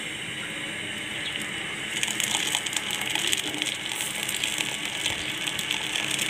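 Freshly split milk, chhena curds and whey, poured from a metal pan into a cloth strainer: a steady splashing stream of liquid that grows louder about two seconds in.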